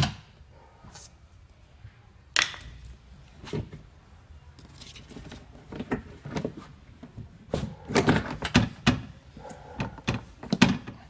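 Plastic window-regulator frame of a Nissan Murano Z51 front door being handled and pressed into place inside the door shell: a string of irregular knocks, clicks and plastic rattles. A sharp knock comes right at the start and another about two and a half seconds in, and the knocks come thick and fast in the second half.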